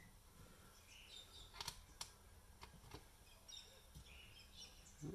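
Faint bird chirps in the background with a few light clicks, over a low steady hum.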